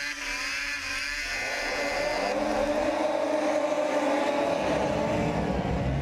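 Racing snowmobile engines running at high revs: the whine dips and climbs in pitch in the first second or so, then holds a steady drone.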